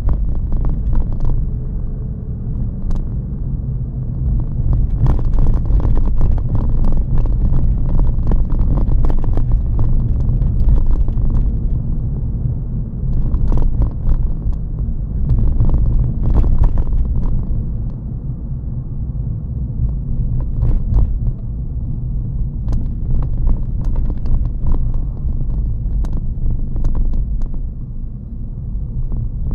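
Interior road noise of a Toyota Yaris GR Sport on a broken, potholed road: a steady low rumble from the wide tyres on 18-inch wheels, broken by frequent sharp knocks and thuds as the firm suspension hits potholes and rough patches.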